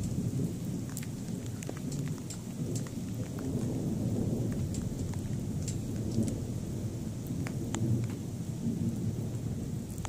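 Thunder rumbling low and continuously from a nearby thunderstorm, swelling twice, with scattered sharp ticks of rain throughout.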